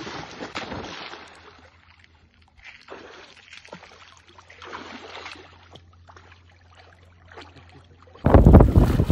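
Water splashing as an English bull terrier plunges and paddles through shallow water, in uneven bursts with quieter gaps. About eight seconds in, loud wind buffeting the microphone suddenly takes over.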